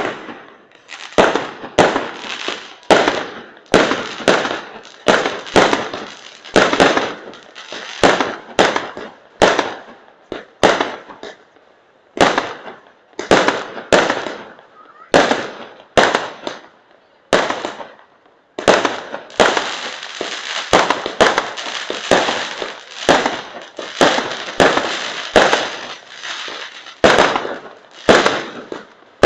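Fireworks display: aerial shells bursting in quick succession, one to two sharp bangs a second, each trailing off in an echo. There is a brief lull about two-thirds through, then a denser run of bursts.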